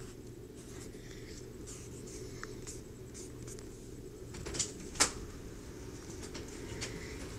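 Drawing on a tablet touchscreen: faint rubbing of strokes on the glass, with two sharp taps about four and a half and five seconds in, over a steady low hum.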